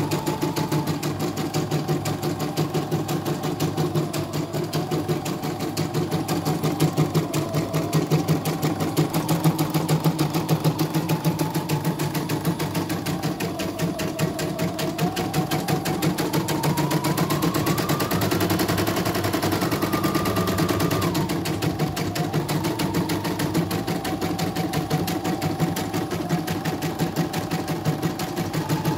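CNY portable computerized embroidery machine stitching a design at a fast, even pace, with a motor whine that drifts up and down in pitch and climbs highest a little past the middle. It is a test run after repair for untidy stitching, going smoothly without the thread breaking.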